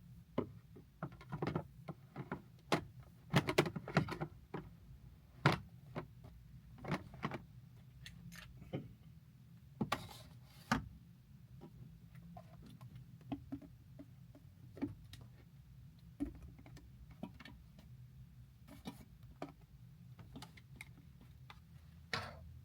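Plastic door shelves and bins of a mini fridge being handled and fitted into place: irregular clicks and knocks of plastic on plastic, thickest in the first few seconds, then more spread out.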